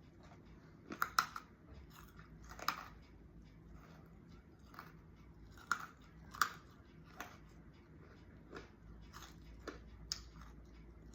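Biting and chewing hard, crunchy Tic Tac chicken-onion flavoured chips: irregular sharp crunches, the loudest around a second in and again around six seconds, with quieter chewing between. The chips are hard enough to feel like crunching ice.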